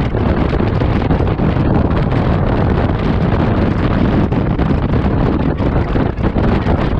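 Loud, steady wind rush buffeting a GoPro Hero 7 Black's microphone on a moving Honda Forza 125 scooter.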